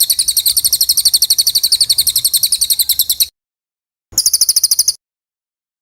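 A songbird's rapid, high-pitched trill, a fast even run of notes at about thirteen a second. It cuts off abruptly about three seconds in, comes back briefly around the fourth second, then stops again.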